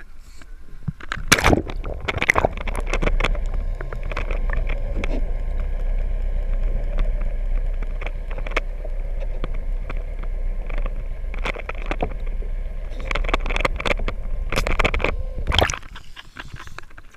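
Water splashing as a camera plunges into the sea, then a muffled underwater rumble and gurgling with a faint steady hum. More splashing comes near the end, and the rumble cuts off suddenly as the camera comes back out.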